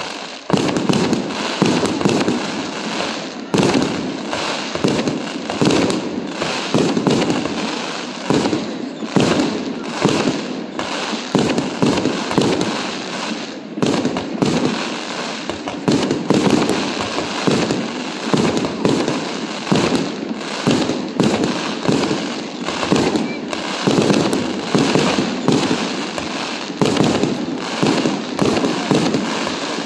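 Fireworks display: aerial shells and firecrackers going off in a continuous barrage, several bangs a second without a break.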